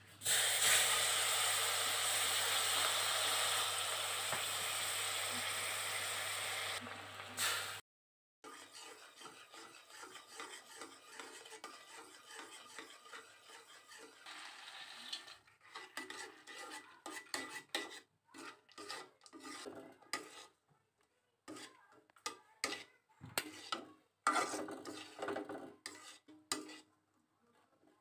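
A loud, steady sizzling hiss for the first several seconds, cutting off abruptly. After that a metal spatula stirs and scrapes through bubbling sugar caramel and then peanuts in a pan, with irregular scrapes and clinks against the pan.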